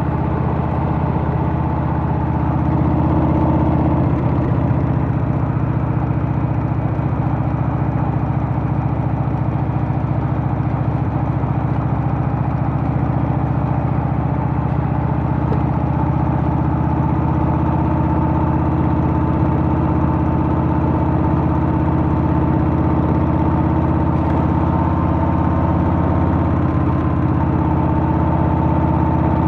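Harley-Davidson Softail's Milwaukee-Eight V-twin engine running steadily while the motorcycle is ridden, getting a little louder about three seconds in.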